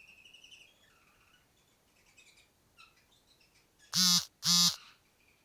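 Female canary chirping in soft, high, short trills and scattered chirps. Near the end come two loud, harsh, buzzy calls about half a second apart.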